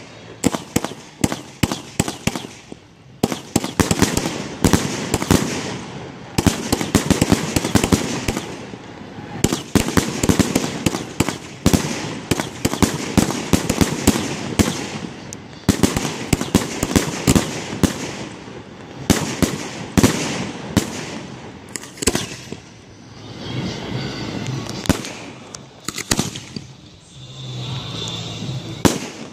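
Fireworks display: aerial shells launching and bursting in quick succession, a dense run of bangs and crackles that thins out for a few seconds near the end.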